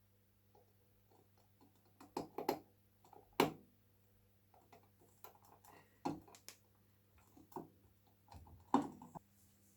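Scattered light clicks and knocks of small hard objects being handled and set down, irregularly spaced and loudest about three and a half and nine seconds in, over a faint steady hum.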